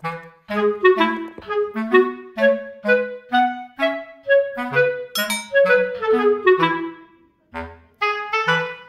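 Background music: a light, bouncy tune of short, detached woodwind-like notes over a simple bass line.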